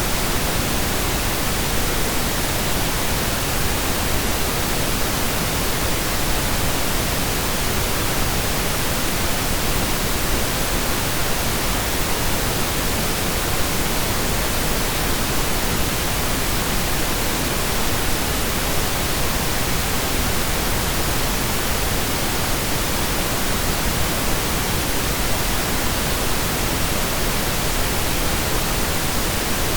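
Steady synthesized pink noise, an even hiss spread across the whole range like rain, with no changes or events.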